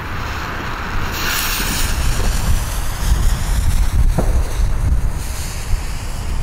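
Ground firework fountain (Diamond Mount Everest volcano) burning with a steady hiss as it sprays sparks, over wind rumbling on the microphone.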